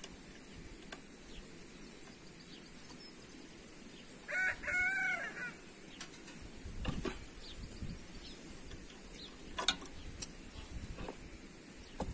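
A rooster crows once, about four seconds in, a single crow lasting about a second and a half. A few sharp knocks follow, the loudest a couple of seconds before the end.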